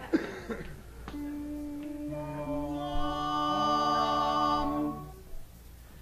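Barbershop quartet of men's voices humming the opening chord of an a cappella song. A single held note begins about a second in, the other parts join one after another to build a sustained four-part chord, and the chord fades out just after five seconds in.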